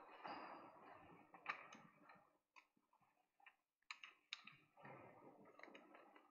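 Near silence with faint, irregular footsteps and small clicks as people walk across a church floor.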